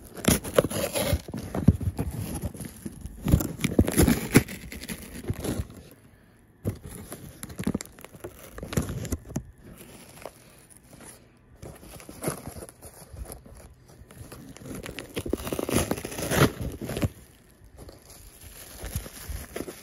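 Toy packaging being handled and opened: irregular crinkling, tearing and rustling with scattered knocks, easing off briefly about six seconds in.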